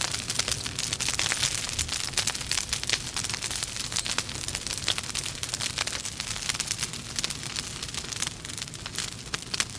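Logs burning in a fireplace: a dense run of small crackles and pops over a steady hiss and low rumble of the flames.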